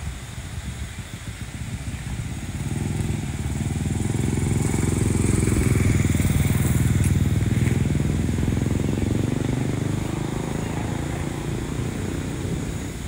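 A motor vehicle's engine passing by, growing louder over a few seconds, loudest about six seconds in, then fading.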